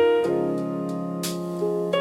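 Slow gospel-style keyboard music: sustained piano chords, with a chord change about a quarter second in and another near the end.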